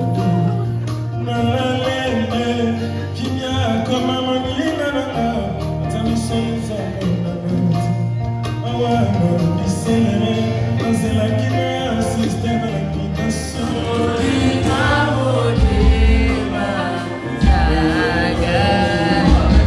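Live band music: a male singer backed by drums, bass and guitar. About thirteen seconds in the sound changes abruptly while the music carries on.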